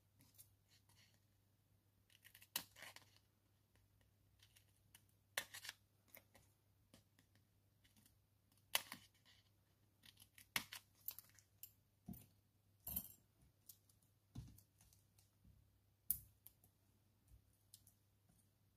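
Scissors snipping small pieces from a sheet of foam adhesive squares (Stampin' Dimensionals): a dozen or so short, sharp, faint snips and clicks at irregular intervals, with light handling of the sheet.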